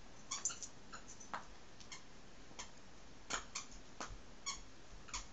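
Faint, irregular light clicks and ticks, about a dozen, from a small dog rolling and wriggling on a carpet while playing with a plush toy.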